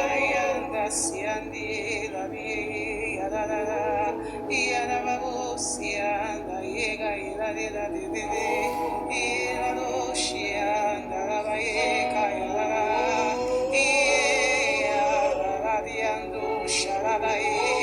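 A voice singing long, wavering notes with vibrato over sustained background music, in the manner of spontaneous worship singing.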